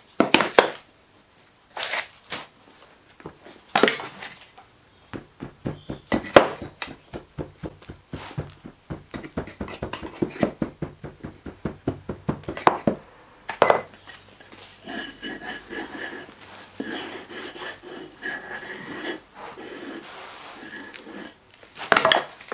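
Moulding sand being tipped into a wooden moulding box and packed down with a hand rammer: a few heavy single thumps, then a long run of quick tamping knocks, then a quieter, steadier rustle of sand being worked, with one more loud knock near the end.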